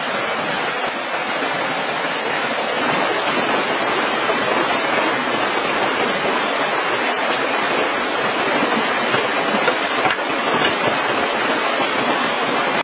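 Steady rushing of a fast-flowing stream over rocks.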